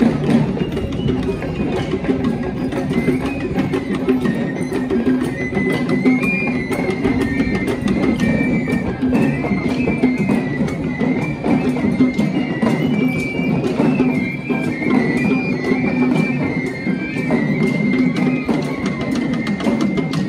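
Traditional Sri Lankan procession music: dense, rapid drumming under a high pipe melody that steps up and down in pitch.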